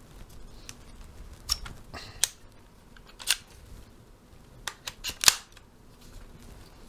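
Sharp plastic clicks and clacks from the Zhiyun Crane 3S gimbal's detachable smart sling handle as its plastic lock and release are worked and the handle is pulled off and snapped back on. Several separate clicks, with a quick cluster about two-thirds of the way through, the last of them the loudest.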